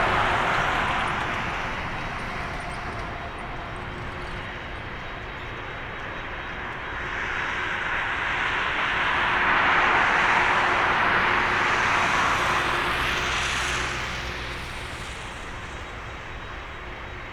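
Jet engine noise from an Airbus A350-900's Rolls-Royce Trent XWB engines at takeoff power: a steady rushing roar that eases, swells again to its loudest about ten seconds in, then fades away.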